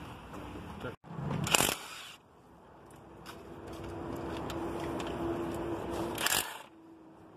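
Kobalt cordless impact wrench firing in two short bursts, about a second and a half in and again near the end, as it breaks loose the intake-manifold bolts. A steady low hum builds in the background between the bursts.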